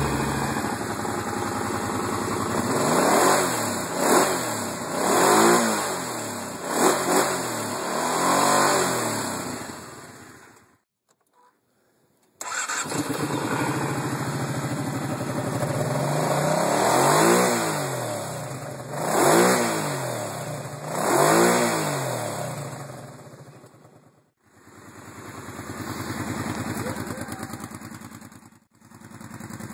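Kawasaki Brute Force 750i ATV's V-twin engine being revved in quick throttle blips, each rising and falling in pitch, about five in a row. After a short silence it idles and is blipped three more times, then dies away and comes back.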